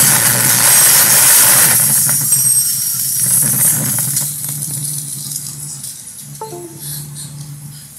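A film sound effect of a magic ice blast: a loud whooshing, crackling burst lasting about two seconds, then fading under dramatic orchestral music that holds a steady low note.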